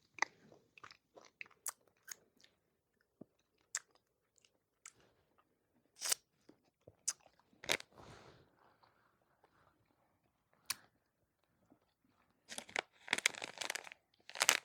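Quiet mouth sounds of someone eating sour cotton candy: scattered lip smacks and small clicks, then a couple of seconds of denser crackling near the end.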